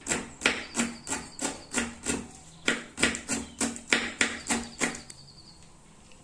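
Kitchen knife chopping fresh parsley on a cutting board: a quick, even run of sharp knocks, about three a second, that stops about five seconds in.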